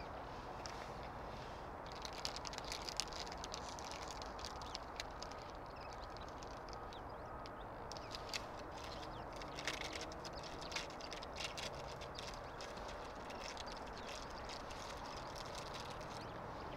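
Outdoor field ambience: a steady low background hum, with a scatter of short, faint high-pitched ticks and chirps from about two seconds in until about twelve seconds in.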